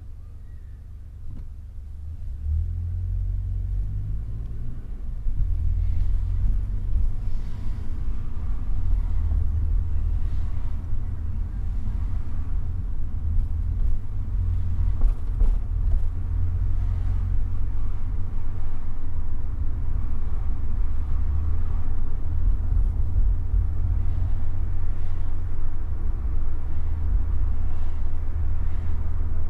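Low rumble of a car's engine and tyres on the road, heard from inside the moving car. It grows louder over the first six seconds or so, then holds steady.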